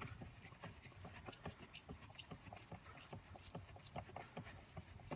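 Faint, quick clicking and ticking of screws being driven by hand into the plastic steering column shroud, several small clicks a second.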